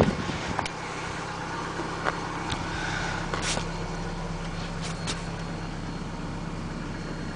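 Car engine idling steadily with a low, even hum. A thump at the very start as a car door is opened, and a few light clicks and knocks through the idle.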